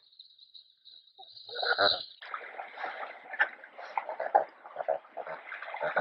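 North American river otters calling: one louder call about a second and a half in, then a run of short calls coming several a second.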